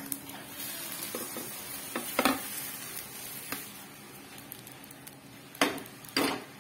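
Oats chilla sizzling in a nonstick frying pan as it is tipped out onto a plate, with a sharp knock a little over two seconds in. Near the end, two sharp knocks as the emptied pan goes back down on the gas stove.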